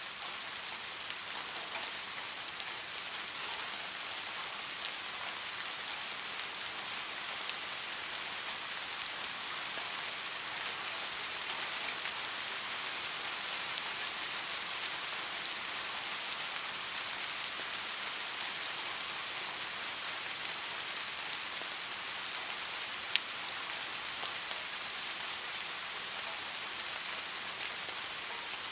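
Steady rain falling, an even hiss of many drops, with one sharp drip or tap about 23 seconds in.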